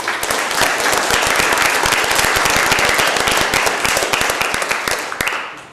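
Audience applauding: a dense run of hand claps that dies away near the end.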